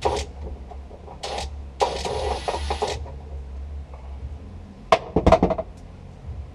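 Metal tools clinking and clanking on a car door's hinge bolts as they are taken out, with a power tool running in a short burst of about a second early on and a quick cluster of sharp metallic clanks near the end.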